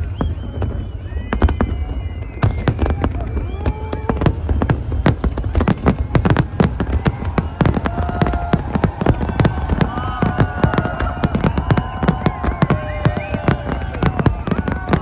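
Fireworks display going off in a rapid, near-continuous barrage of bangs and crackles, growing denser after about two seconds.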